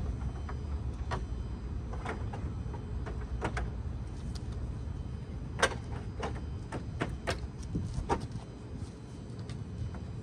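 Scattered sharp plastic clicks and knocks as a Toyota Tacoma's grille is handled and pressed back onto the truck's front, over a steady low rumble.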